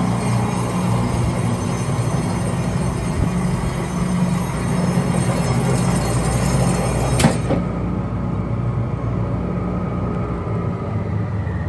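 Stokes 328-1 45-station rotary tablet press running with a steady mechanical hum. A sharp click comes about seven seconds in, after which the high hiss falls away while the low hum carries on.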